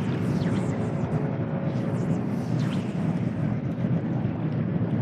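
Steady wind buffeting the microphone, with small waves lapping.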